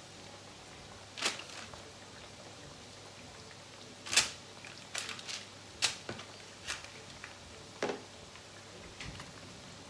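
Kitchen handling sounds: a scattered series of about eight short, sharp taps and knocks, the loudest a little over four seconds in, as raw marinated chicken pieces are lifted from a plastic tub and laid on a baking-paper-lined metal tray.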